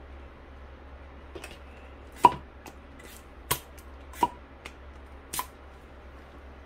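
Four sharp knocks of a hard object, spaced about a second apart, the first the loudest, with a couple of fainter taps between them.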